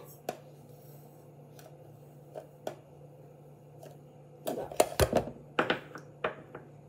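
A few faint taps, then a quick run of loud clicks and knocks about four and a half seconds in, as a spoon clatters against a clear plastic mixing jug while sugar and eggs are stirred. A low steady hum runs underneath.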